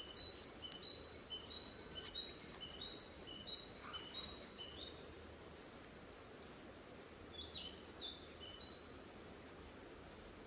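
A songbird singing faintly: a clear two-note phrase, lower then higher, repeated about nine times at roughly two a second, then after a pause a shorter, more varied phrase.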